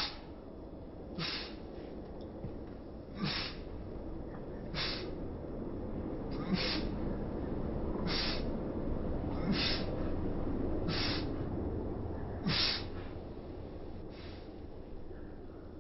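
A cat sneezing over and over, about ten short sneezes roughly one every second and a half: a run of repeated sneezing, which the uploader puts down to a cat cold.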